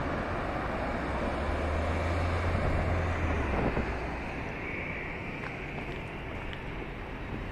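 Twin-engine jet airliner passing low overhead on final approach to land. Its engine noise is a steady rush with a deep rumble that peaks about two to three seconds in, then fades as the plane moves away.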